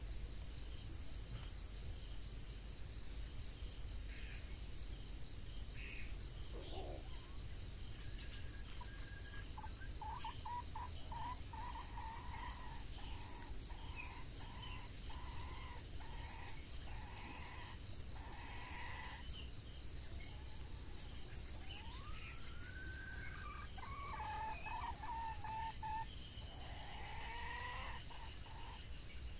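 Red junglefowl calling over a steady buzz of insects: a run of short, evenly repeated notes through the middle, then several rising calls near the end.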